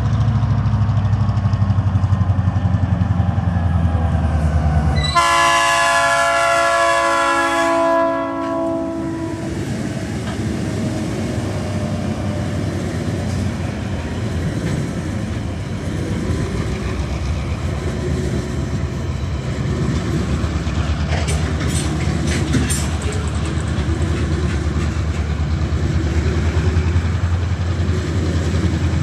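Diesel locomotives of a coal train passing with a low engine rumble. About five seconds in, the lead locomotive sounds its multi-note horn for about three seconds at the road crossing, its pitch dropping slightly as it goes by. A long string of coal hopper wagons then rolls past with a steady rumble and clatter of wheels on rail.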